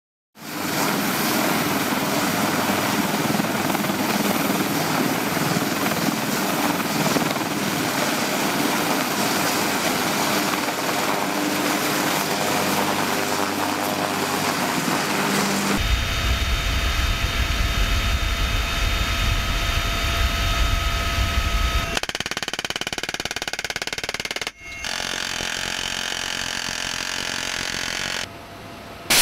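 Military helicopter turbine and rotor noise in several clips that cut abruptly from one to the next; the middle part is a deep rumble with a steady whine above it.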